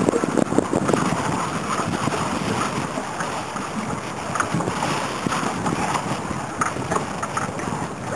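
Wind buffeting the microphone over choppy lake water, with small waves lapping and splashing.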